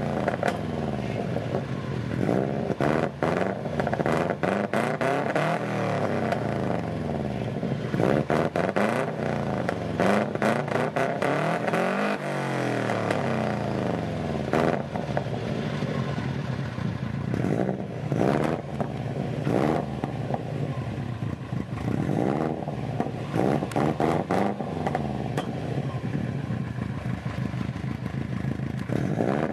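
Turbocharged flat-four of a modified Subaru Impreza WRX heard at the exhaust, free-revved repeatedly while standing still. The pitch climbs and falls back over and over, with a rough, crackly edge on the way down.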